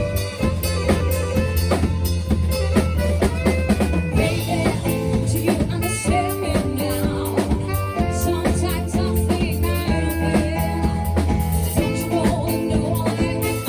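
A live band playing: drum kit keeping a steady beat with snare and bass drum under a sustained bass line and melodic lines, with some singing.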